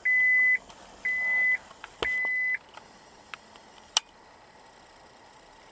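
2000 Acura TL's dashboard warning chime beeping with the ignition switched on. It gives three beeps, each a steady high tone about half a second long, one a second, then stops. A single sharp click comes about four seconds in.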